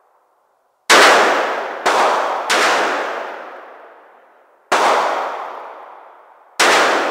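Five shots from a large-calibre revolver, each ringing out in a long echoing decay in the indoor range. Three come close together in the first few seconds, then two more about two seconds apart.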